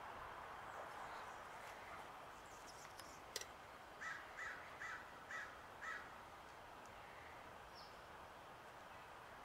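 A crow cawing five times in quick succession, about half a second apart, preceded by a single sharp click.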